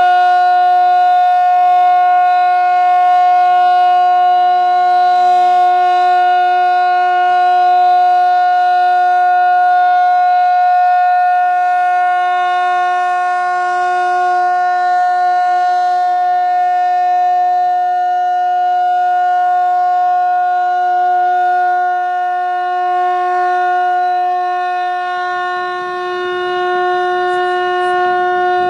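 Fire siren sounding one long unbroken wail at a steady pitch. Near the end a low rumbling noise joins it.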